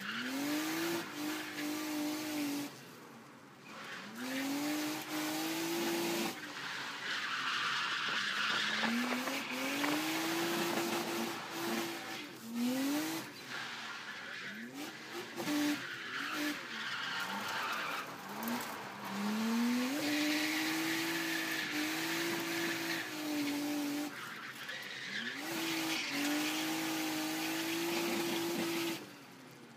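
Nissan 200SX's turbocharged RB25DET straight-six, heard from inside the cabin through a screamer pipe, revved hard over and over, each climb levelling off and held near the rev limiter. Tyres squeal in places as the car slides.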